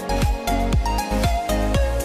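Electronic background music with a steady beat of about two kick-drum hits a second under a held melody.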